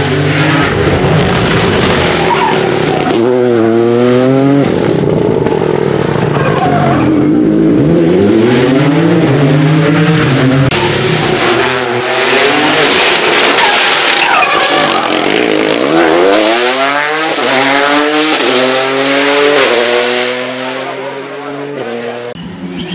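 Rally car engines revving hard at full speed, climbing in pitch through a run of quick upshifts as the cars accelerate past, one after another.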